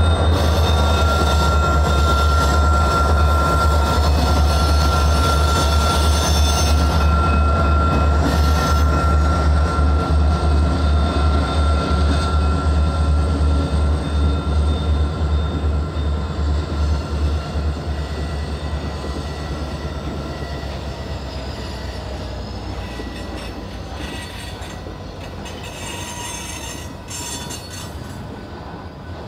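Freight train led by two EMD diesel locomotives passing and pulling away, the deep engine rumble fading over the first half. A steady high wheel squeal fades out about twelve seconds in, then the cars roll by with wheel clicks as the whole sound dies down.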